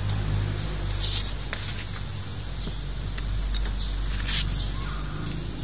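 Light metal clinks and taps at irregular moments as Bajaj CT100 clutch plates, new friction linings alternating with steel spacers, are fitted onto the clutch hub by hand. A steady low hum runs underneath.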